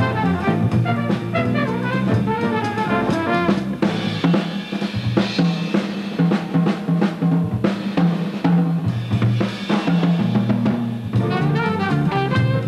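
Bebop jazz: alto saxophone and trumpet lines over a rhythm section give way about four seconds in to a drum kit break of snare, bass drum and cymbals, and the horns come back in near the end.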